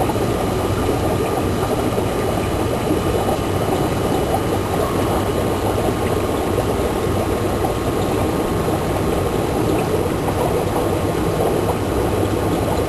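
Air-driven sponge filters in an aquarium bubbling and gurgling steadily as air rises up their lift tubes, with a faint steady hum.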